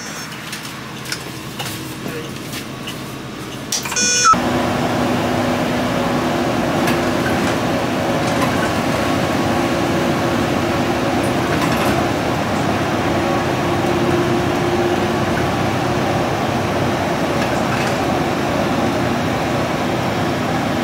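Inside a moving city bus: the steady drone of the bus's engine and running gear, with a few held hum tones. The first few seconds are quieter with a few clicks, and a brief high-pitched tone comes about four seconds in, after which the drone gets louder.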